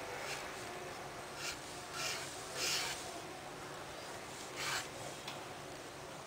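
Fountain pen's metal nib scratching across paper in about six short strokes while drawing a curved line, the longest and loudest stroke near the middle.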